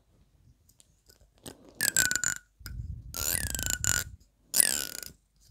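Fingernail strumming along the teeth of a black plastic comb: three buzzing rasps, the middle one longest, each with a pitch that slides up and down.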